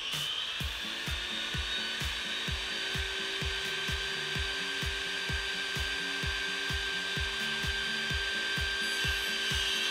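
Power saw running with a steady high whine while a wooden board is fed across it, over background music with a steady beat.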